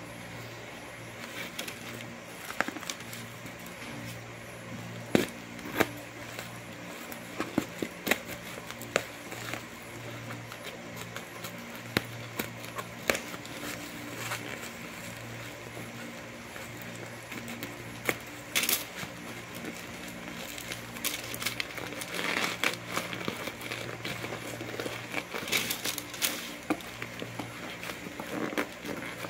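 Bubble wrap and plastic packing tape crinkling and crackling as a parcel is handled and cut open with scissors, with many short sharp clicks and snips. A steady low hum runs underneath.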